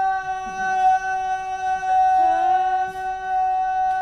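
Microphone feedback through a PA system: a loud, steady ringing tone holding one pitch. About halfway through, a second, slightly lower tone slides up to meet it.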